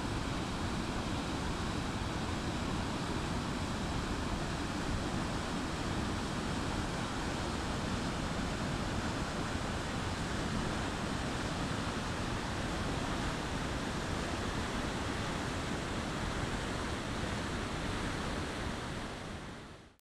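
Goðafoss waterfall's steady rush of falling water, fading out at the very end.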